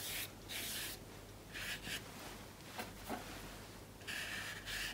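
Large flat watercolour brush stroked back and forth over wet watercolour paper: a faint hissing, brushing sound in several short strokes with brief pauses between.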